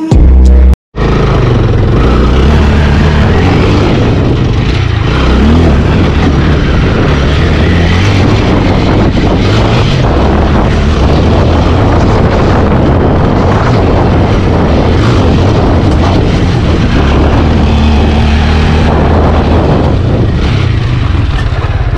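TVS Apache RTR 200 4V motorcycle's single-cylinder engine running steadily as the bike rides a dirt off-road trail, mixed with heavy wind rumble on the helmet-mounted camera. The sound starts after a short break just under a second in.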